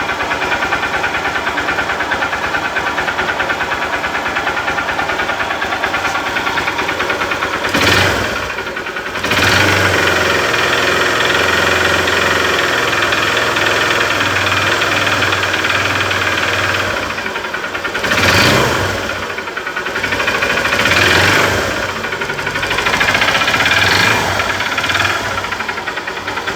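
Honda CG 150's single-cylinder four-stroke engine running with a strange noise that began after an oil change. It is revved up briefly several times and held at higher revs for several seconds in the middle.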